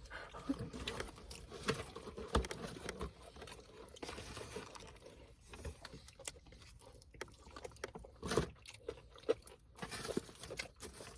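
People eating fast food: chewing and biting with scattered small crunches and taps at an irregular pace.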